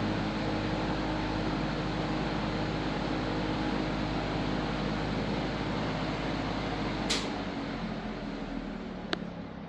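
Artic Aire box fan running steadily on high speed, its motor humming under an even rush of air. About seven seconds in there is a sharp click, the motor hum stops and the sound falls away as the blades coast down.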